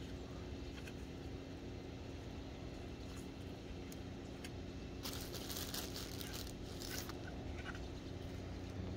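A steady low mechanical hum, like a motor running nearby, with faint scattered clicks and a brief patch of crackling, crunching noise about five seconds in.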